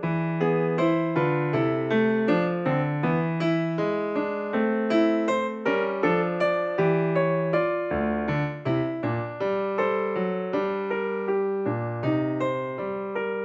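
Background music: an electric piano playing a steady run of struck chords and notes, several a second.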